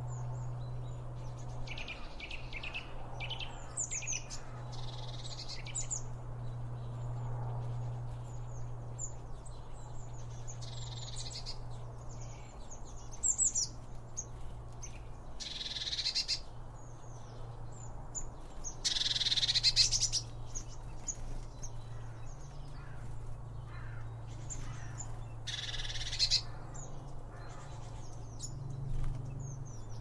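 Garden birds, blue tits among them, chirping and calling in short, scattered bursts, the loudest a longer, scratchier call about two-thirds of the way through. A steady low hum runs underneath.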